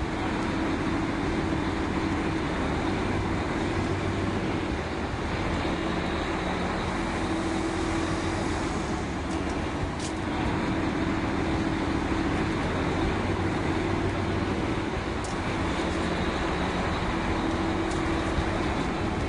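Drilling rig machinery running: a steady mechanical drone with a constant hum, broken by a few sharp clicks.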